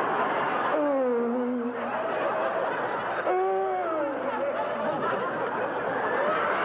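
Audience laughing throughout, with one voice holding drawn-out, wavering notes over the laughter a few times.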